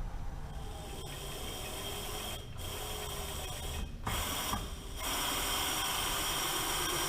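Bridgeport Series II Special CNC vertical mill running a program: a steady mechanical whine with short rising and falling tones as the machine moves, broken by a few brief breaks, and louder and steadier from about five seconds in.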